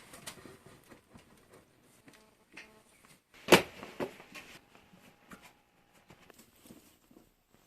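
Scattered light clicks and taps of parts and tools being handled, with one sharp knock about three and a half seconds in.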